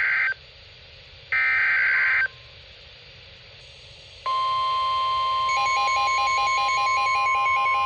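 NOAA Weather Radio SAME alert header: two short bursts of screeching digital data about a second apart, then the steady single-pitch 1050 Hz warning alarm tone starts about four seconds in, signalling that a severe thunderstorm warning follows. A fast pulsing beep pattern joins over the tone a little later.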